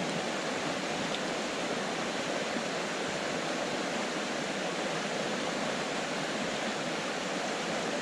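Mountain stream water rushing, a steady, even rush with no breaks.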